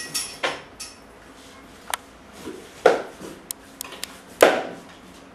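Scattered clicks and knocks of small hard objects being handled, with two louder knocks about three and four and a half seconds in.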